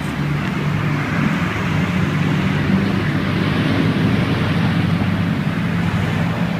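Steady street traffic noise with a low engine hum, swelling slightly toward the middle.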